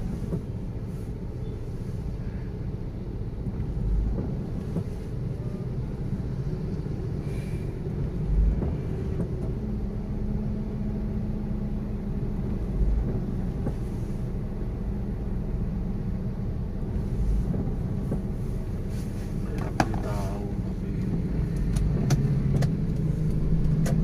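Steady low rumble of a car idling, heard from inside the cabin, with a soft low thump every four seconds or so.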